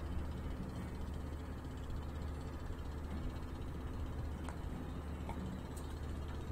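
A steady low engine drone running evenly, with a few faint ticks in the second half.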